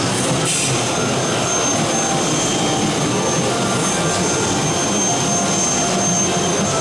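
Aluminium-profile CNC machining center with an HSD electrospindle running: a steady machine whir with a thin high whine through most of it.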